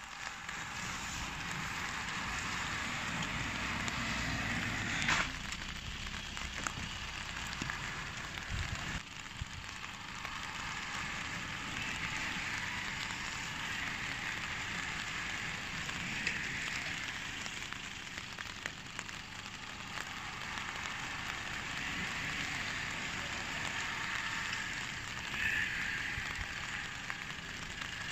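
Steady hiss of rain falling, mixed with the swish of tyres on the wet road, swelling several times as racing bicycles and a team car pass close by, with scattered small crackles.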